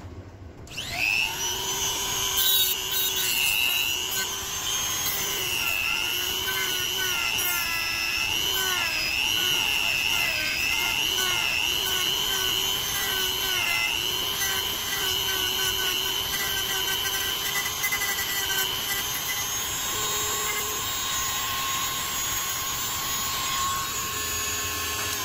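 Dremel-type rotary tool with a sanding drum spinning up about a second in, then running steadily as it grinds down a plastic ridge. Its whine wavers in pitch as the drum bites into the plastic.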